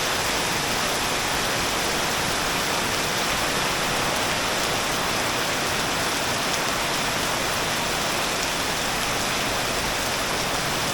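Very heavy tropical downpour, a dense steady hiss of rain pouring down without a break.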